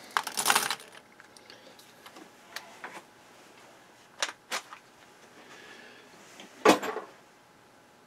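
A handful of M6 bolts set down with a metallic jingle, followed by a few light metal clicks and a louder clatter near the end.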